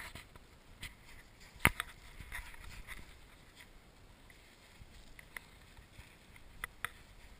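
Scattered short crunches and clicks of snow being packed in gloved hands and trodden underfoot, the sharpest about a second and a half in, with a pair close together near the end.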